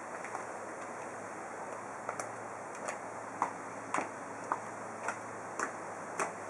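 Stiletto high heels clicking on a concrete floor as someone walks at a steady pace, about two sharp heel strikes a second.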